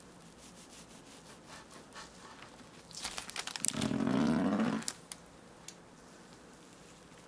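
Knife cutting down through a soft chocolate castella sponge cake and pressing into the parchment paper beneath: a crinkling, scraping rustle that swells about three seconds in and stops near five seconds, with faint crackles before it.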